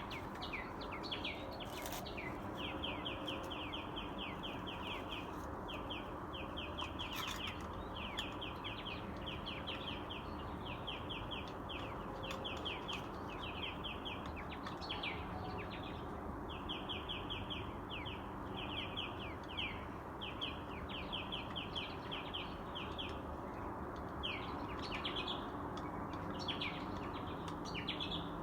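Songbirds chirping at dawn in near-continuous quick runs of short, high, downward-sliding notes, over a steady hum of city background noise.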